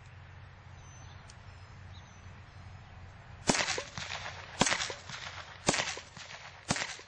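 Blank-firing replica of a Colt Government 1911 firing four 9mm PA blanks about a second apart, starting about halfway through. Each shot is a sharp crack followed by a short echo.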